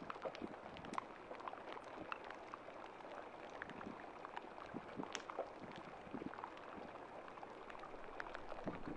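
Faint water sound, a soft steady wash dotted with many small, irregular clicks and pops.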